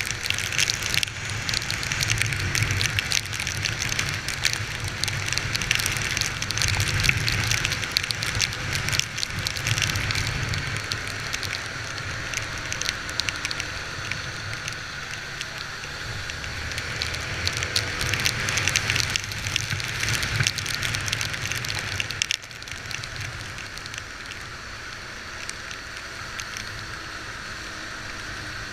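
Heavy rain pattering and crackling on the microphone, with a low rumble underneath that swells and fades. The whole sound drops suddenly about 22 seconds in.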